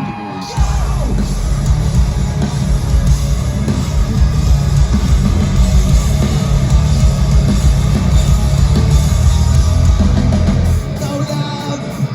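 Live rock band playing a heavy, distorted section with loud bass and drums. The low end comes in about half a second in and drops away near the end, leaving lighter guitar.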